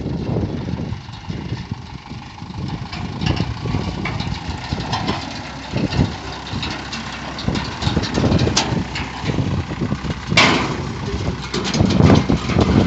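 An engine running steadily as a hay bale elevator lifts a bale up to a truck bed, with rattling and clicking from the machinery and one sharp metallic clank about ten seconds in.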